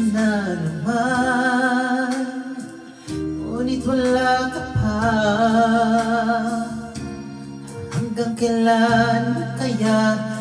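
A man singing a slow ballad into a handheld microphone over backing music, holding long notes with vibrato.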